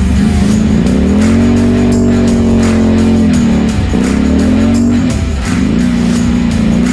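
Straight-piped Can-Am ATV engine revving. Its pitch climbs about a second in and drops off sharply twice, near four and five and a half seconds, before picking up again. Music with a steady beat plays along with it.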